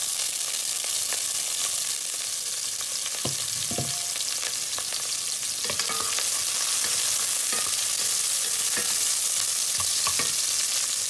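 Chopped red onions sizzling steadily in hot oil in a pot, stirred with a wooden spatula that knocks and scrapes against the pan every second or two.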